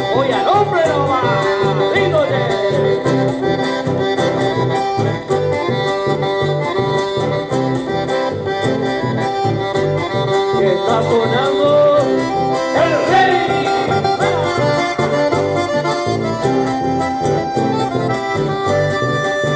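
Chamamé band playing live: an accordion leads the melody over acoustic guitar and electric bass, with a steady, rhythmic bass line underneath.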